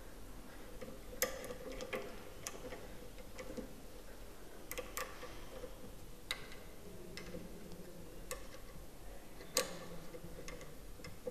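Faint, irregular metal clicks of a 5 mm hex key turning in the clamp screws of a scooter's hydraulic disc-brake lever on the handlebar, about ten sharp ticks in all.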